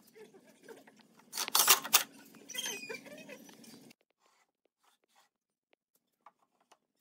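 A short burst from a cordless drill driving screws into the pine stand, followed by squeaks and light knocks of the wooden boards being handled.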